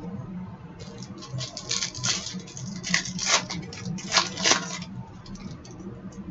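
Wrapper of a hockey card pack crinkling and tearing as it is opened, with the rustle of cards being handled: a run of crisp crackles starting about a second in and dying away near the end.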